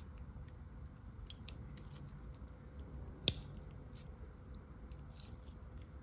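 Tools of a Victorinox 111mm Swiss Army knife being handled, with faint scattered clicks and one sharp click about halfway through.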